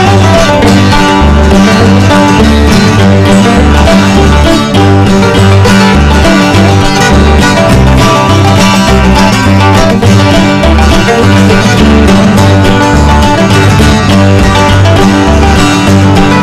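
Bluegrass-style background music: plucked guitar and banjo over a steady, evenly pulsing bass.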